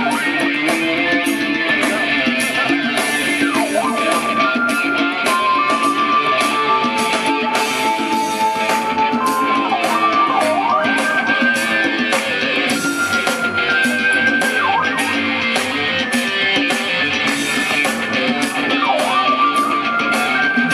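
Music played on iPad touchscreen instruments through a speaker: a held synth-like lead melody that steps between notes and swoops down and back up in pitch glides, over a busy guitar-like strummed part.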